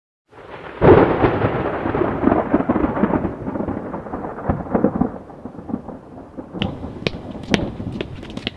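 A thunderclap that peaks about a second in, then rumbles and fades over several seconds. Near the end come footsteps of shoes on a concrete sidewalk, about two steps a second.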